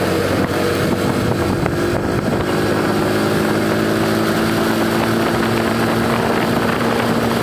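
Motorcycle engine running steadily while the bike cruises along, with wind noise on the microphone.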